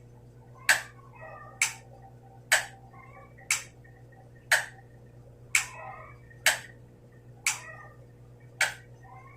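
Sharp, regular ticks about once a second over a steady low hum, with faint wavering chirp-like sounds between the ticks.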